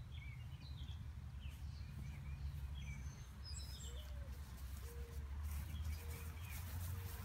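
Birds chirping over a steady low outdoor rumble, with four soft, low hooting notes about a second apart in the second half.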